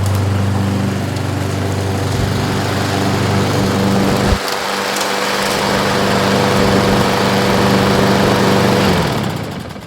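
Craftsman walk-behind mower's 7.25 hp Briggs & Stratton engine running steadily after its repair, with a sharp knock about four seconds in. Near the end it is shut off and winds down to a stop.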